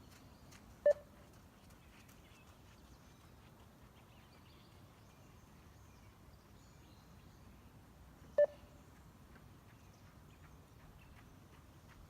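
Two short beeps of a 20 m beep test (multi-stage shuttle run), about seven and a half seconds apart, each marking the end of one 20 m shuttle at level 3.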